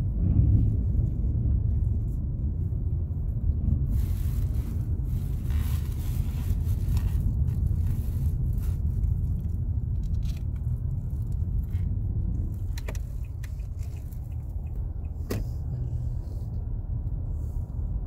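Steady low road and engine rumble inside a moving car's cabin, with a few faint clicks about two-thirds of the way through.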